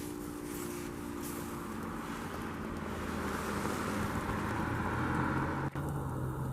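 A road vehicle going by: tyre and engine noise grows louder, breaks off abruptly near the end, and gives way to a steady low engine hum.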